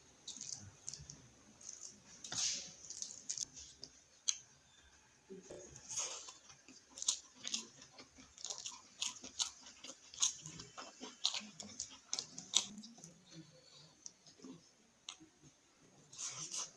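A person chewing and eating a meal of dal and fried onion close to the microphone, with irregular crunches and mouth clicks.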